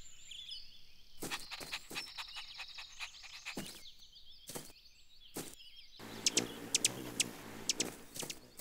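Cartoon sound effects: bird chirps fading out at first, then a string of short, soft knocks and thumps, and about six seconds in a scurrying, rustling run with quick high clicks as a cartoon puppy dashes off.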